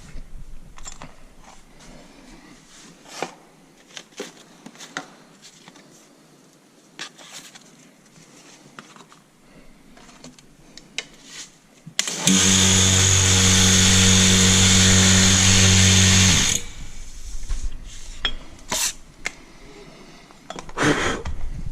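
A handheld power tool runs steadily for about four seconds, starting and stopping abruptly. Before and after it come scattered small clicks and knocks of metal parts being handled.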